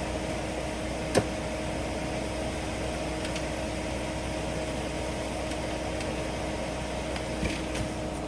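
Engine idling steadily, with one sharp click about a second in; its pitch begins to drop right at the end.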